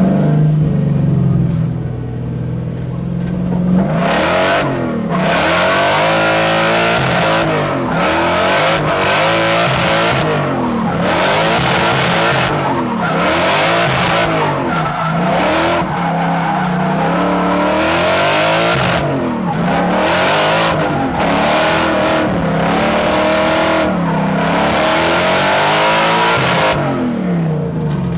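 Supercharged Toyota 1UZ V8 in a drift truck, holding a steady note for about four seconds and then revving up and down again and again through a drift run, over a constant hiss of tyre noise.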